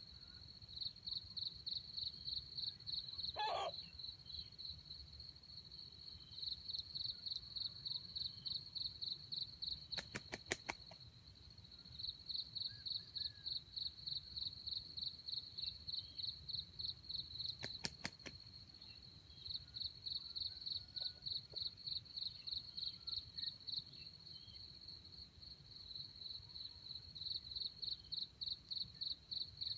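High-pitched insect chirping in rapid even pulses, about ten a second, in runs of several seconds with short breaks. Two brief clusters of sharp clicks break in, about ten seconds in and again about eight seconds later.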